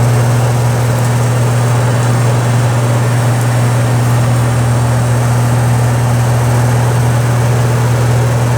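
Camper air conditioner running, a steady loud hum from the compressor over the rush of its fan, on a 20-amp hookup though it calls for 30 amps. It is cooling.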